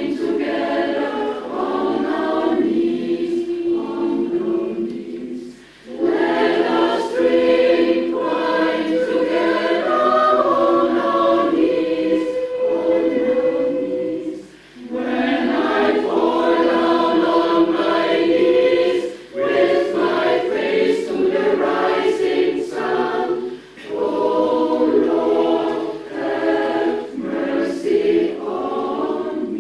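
Mixed choir of women's and men's voices singing in harmony, with a few short breaks between phrases.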